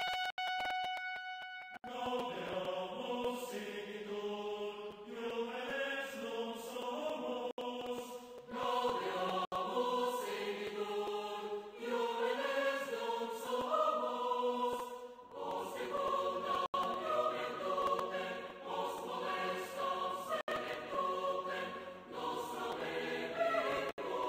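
A choir singing the closing song of a radio broadcast. The choir comes in about two seconds in, right after the last steady tones of a brass jingle.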